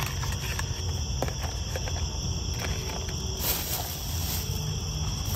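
Crickets chirring steadily over a low background rumble, with plastic rustling and light clicks as a plastic food container and a plastic bag are handled. The rustling gets louder from about three and a half seconds in.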